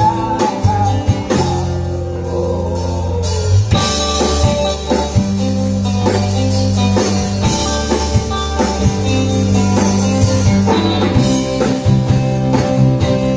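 Live rock band playing: electric guitar and bass over a drum kit with a steady beat.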